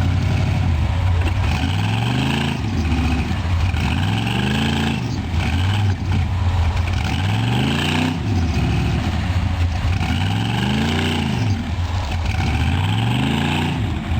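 Chevy V8 in a Jeep Wrangler revving up and dropping back again and again, about every two seconds, as the stuck Jeep spins its tires in mud.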